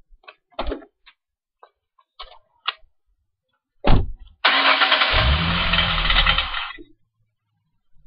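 A few light clicks, then a loud knock about four seconds in, followed by about two seconds of harsh rattling noise over the 2005 Ford Mustang's engine running, which stops abruptly. The owner suspects the rattle is in the exhaust.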